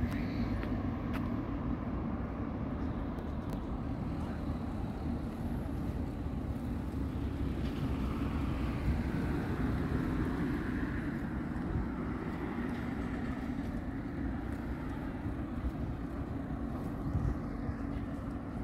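Steady low outdoor background rumble with a droning hum beneath it and no distinct events.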